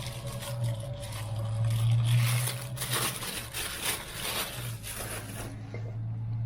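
Scraping and rustling of hands working metal lock parts of a door knob lockset, over a steady low hum.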